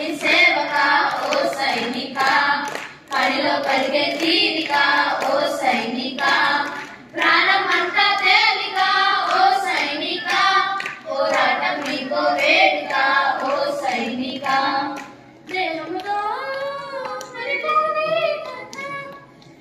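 A group of girls singing a song together in unison, phrase by phrase with short breaths between lines, accompanied by hand claps.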